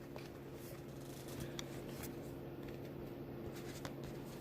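Faint handling of paper photocards, small clicks and rustles, over a steady low hum.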